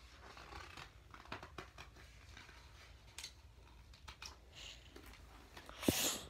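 Faint handling of a picture book's paper pages: soft clicks and short rustles, with a louder, brief rustle near the end.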